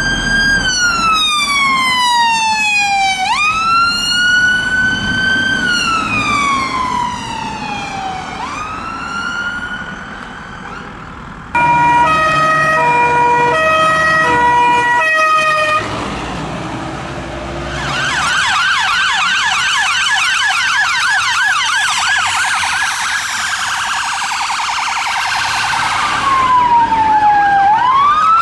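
Fire engine sirens in a series of modes. First a slow wail sweeps down in pitch and back up, twice. Then a two-tone siren alternates between two fixed notes. Then a fast yelp warbles for several seconds, and the slow wail returns near the end.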